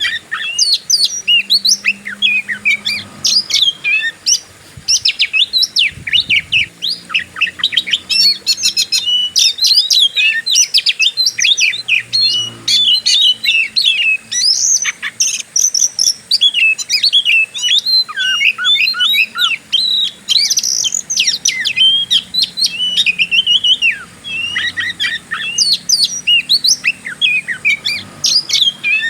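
Oriental magpie-robin (kacer) singing a long unbroken run of rapid, varied whistles and chirps in an aggressive, fighting style.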